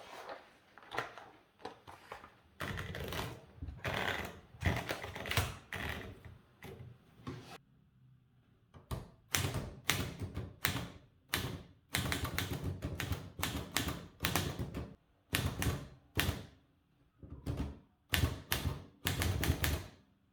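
A typewriter being typed on: its keys and typebars strike the paper in rapid irregular runs of clacks, with a short pause about eight seconds in.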